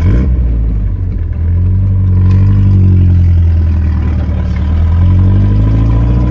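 A vehicle engine catches right at the start and runs loudly, its pitch easing slightly about two seconds in and rising again near the end.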